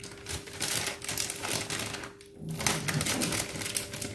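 Scissors snipping open a plastic packet of sooji (semolina): a quick run of sharp clicks, with a short pause about two seconds in.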